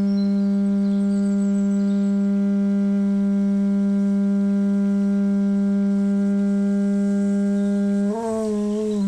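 Conch shell trumpet blown in one long, steady low note with strong overtones. About eight seconds in, the note wavers and wobbles in pitch for a moment.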